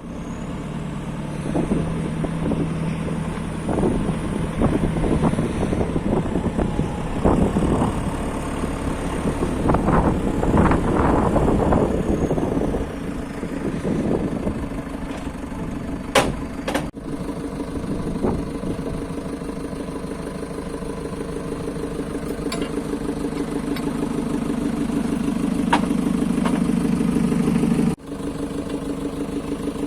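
JCB 3CX backhoe loader's diesel engine running, with irregular clattering and surges in engine level through the first half, then a steadier, even engine tone. Two sharp clicks come a little past halfway, and the sound breaks off briefly near the end.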